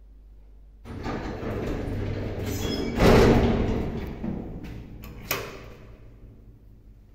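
Automatic sliding doors of a 2006 Mogilevliftmash passenger lift closing: the door drive runs for about two seconds, then the car and landing doors shut with a heavy thump about three seconds in. A sharp click follows a couple of seconds later.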